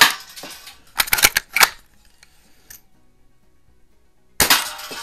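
Daisy Buck Jones Special No. 107 pump-action BB gun fired twice, about four and a half seconds apart, each shot a sharp crack that rings away briefly. Between the shots, about a second in, comes a quick run of clacks as the pump forearm is worked to cock the gun for the next shot.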